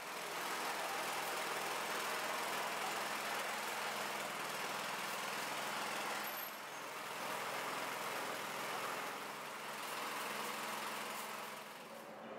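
Steady machine noise: an even hiss over a low hum, dipping slightly in level a few times.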